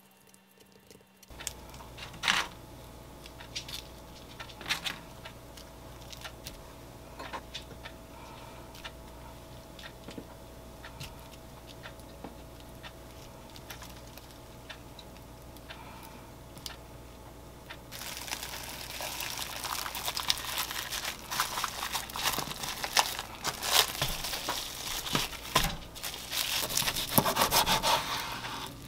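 Plastic cling film crinkling and crackling as it is wrapped tightly around a spinach tortilla roll. This dense noise starts about two-thirds of the way in. Before it come soft scattered taps and rustles of food being laid onto the film over a low steady hum. Near the end a kitchen knife cuts through the wrapped roll on a wooden board.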